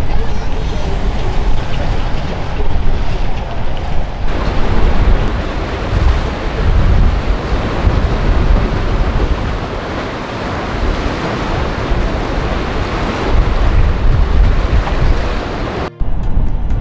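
Wind buffeting the microphone over breaking waves and the rumble of boats running through a rough ocean inlet. The sound cuts off abruptly near the end.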